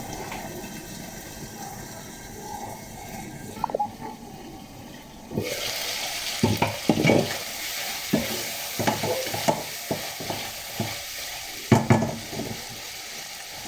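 Chicken sautéing and sizzling in a frying pan as it is stirred, with scrapes and knocks of the utensil against the pan. The sizzle grows suddenly louder about five seconds in.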